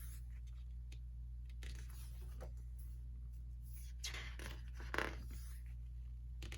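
Paper photo cards and Polaroids being handled and slid past one another: a few brief soft rustles, the loudest about five seconds in, over a steady low hum.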